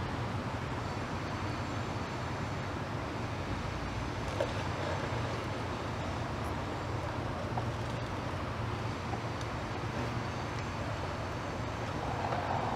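Steady low rumble of distant traffic, with a light tap about four seconds in and a fainter, higher sound swelling up near the end.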